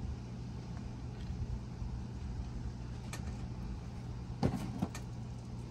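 A self-tapping screw being turned by hand into the metal plate of an Airstream door latch, cutting threads in the hole, with faint clicks and scrapes and two sharper clicks about four and a half seconds in. A steady low hum runs underneath.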